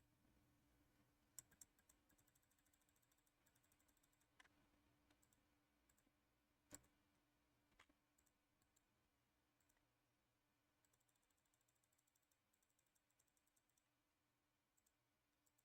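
Near silence, with faint scattered clicks of a computer mouse and keyboard, a few of them in quick runs.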